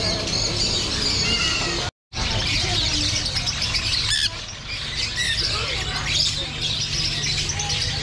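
Many caged birds chirping together, with a dense, overlapping chatter of calls. The sound cuts out for a moment about two seconds in.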